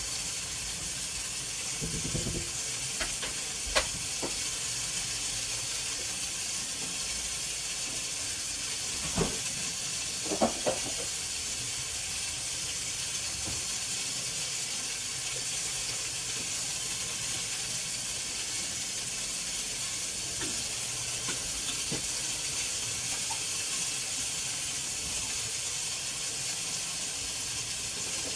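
Food sizzling in a pan: a steady hiss, broken by a few light clicks and knocks of utensils, about four seconds in and again around nine to eleven seconds in.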